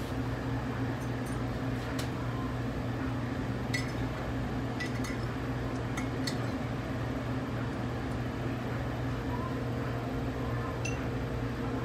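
A stainless steel measuring spoon clinks lightly and irregularly against a ceramic mug and bowls as liquid is scooped and poured. A steady electrical hum runs underneath.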